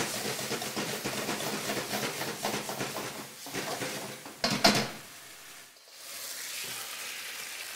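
Marinated pork strips sizzling in a hot wok while being stirred and scraped with a spatula. About four and a half seconds in comes one sharp knock of a utensil against the wok, after which the sizzle is quieter.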